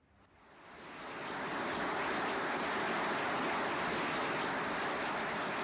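Audience applauding steadily on an old archive film soundtrack, fading in over the first second or so, with a faint steady hum beneath it.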